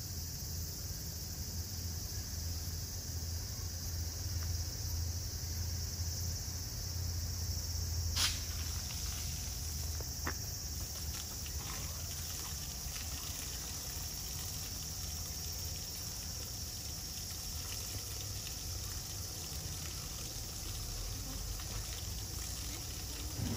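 A steady high hiss with a low hum. About eight seconds in comes a sharp click, and after it a garden hose sprays water onto an elephant, with light scattered spattering.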